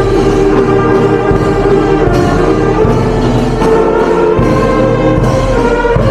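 Orchestral music playing steadily, with sustained chords.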